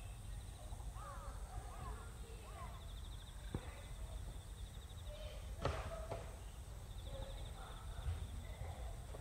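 Rural field ambience: insects trill steadily with a higher rhythmic trill coming and going, a few short chirps sound in the first couple of seconds, and sharp knocks come from equipment being moved in the neighbouring school gymnasium, the loudest a little past halfway.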